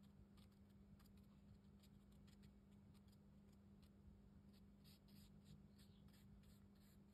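Faint, scratchy strokes of a watercolour brush dabbing and working paint on rough cotton rag paper, coming quicker and a little louder for a couple of seconds before the end, over a low steady hum.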